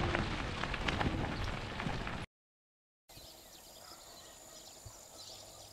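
Crunching, crackling noise of bicycle tyres rolling on a gravel road, which stops abruptly about two seconds in. After a moment of total silence, a faint, steady rural background with a thin high tone follows.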